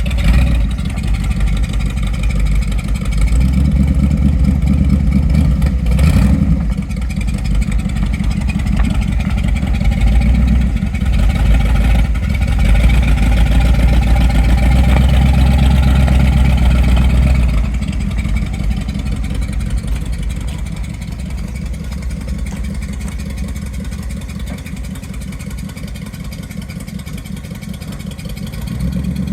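Car engine running on the road, its note stepping up and down as it accelerates and shifts. It eases off about two-thirds of the way through and runs quieter after that.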